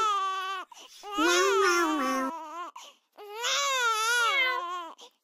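A voice crying in long, wavering, sobbing wails: three drawn-out cries with short breaks between them.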